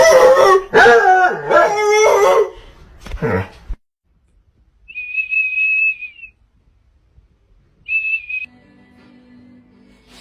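Loud, wavering, howl-like vocalising for about two and a half seconds. Then two high, steady whistle tones: the first just over a second long, the second shorter. A low steady hum follows near the end.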